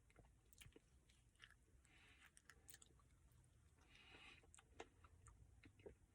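Faint, close-miked eating sounds from a Dairy Queen Blizzard of soft-serve with brownie pieces: soft chewing with many small wet mouth clicks and lip smacks, and a few brief breaths.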